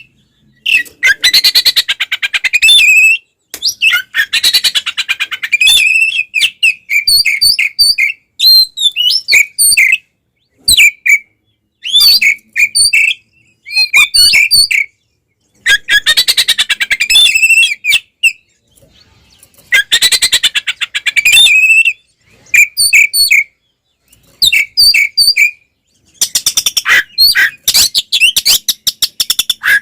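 Oriental magpie-robin (kacer) singing loud full phrases: fast buzzy rattling trills alternate with clear whistled notes and short repeated chirps, broken by brief pauses. This is the aggressive 'fighting' song that keepers play as a lure to provoke other male magpie-robins.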